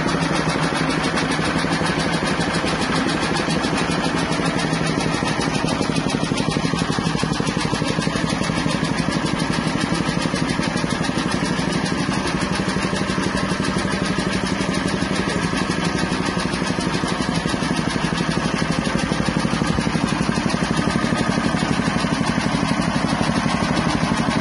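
Small single-cylinder petrol engine running steadily at a constant speed, driving a soybean dehulling machine.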